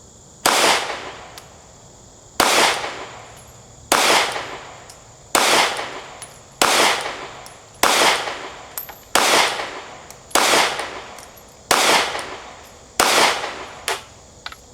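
Ten 9mm shots from a Glock 43X pistol fired at a steady pace, about one every second and a half, each shot sharp with a short echoing tail. Two small clicks follow the last shot near the end.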